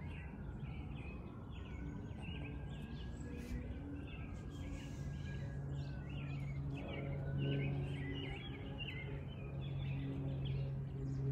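Small birds chirping repeatedly, with the low, steady drone of a twin-engine Beech 58 Baron's propellers growing in from about halfway through as the aircraft approaches.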